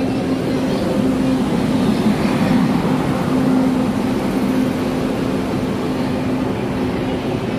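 Indian Railways electric locomotive rolling slowly past along the platform: a steady hum over a rumble, swelling a little a few seconds in.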